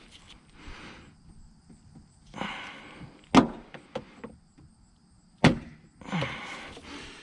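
Hands working car trim parts back into place: scraping and rustling, with two loud, sharp knocks about two seconds apart and a few lighter ticks.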